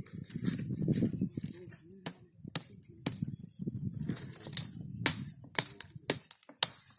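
Sharp snaps and clicks, one every half second to second, as twigs and shoots are cut and broken off at the base of a custard apple tree among dry leaves. A low, indistinct voice murmurs underneath.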